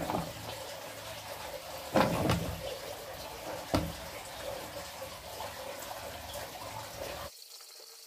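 Hard plastic knocks and clacks as a washing machine's control board housing is pushed and seated into its top panel, the loudest knock about two seconds in and a sharper one near four seconds, over a steady hiss.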